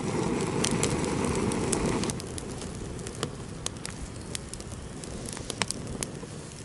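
Small freshly lit campfire of twigs and birch-bark kindling burning: a rushing noise for about the first two seconds, then quieter burning with sharp crackles and pops scattered through.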